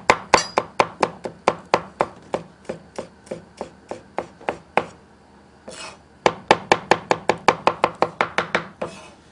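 Steel cleaver chopping green pepper on a wooden cutting board in quick, even strokes, about four to five a second, with a pause of about a second and a half a little past the middle.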